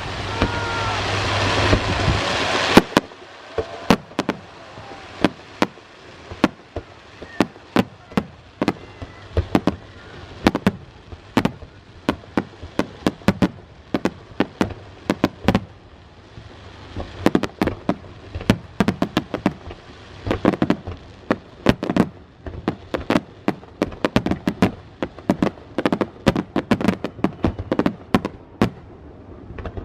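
Aerial fireworks bursting overhead: loud and dense for the first three seconds or so, then a long run of sharp cracks and bangs, several a second, like crackling shells.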